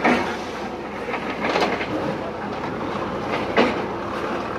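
Diesel engines of JCB backhoe loaders running steadily while their buckets knock down brick walls, with sharp crashes of falling brick and debris, the loudest about three and a half seconds in.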